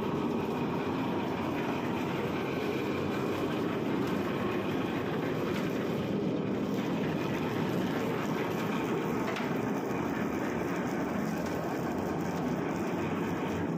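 Reversible drum concrete mixer running steadily and loudly, its electric drive turning the drum, a steady mechanical noise with faint steady tones above it.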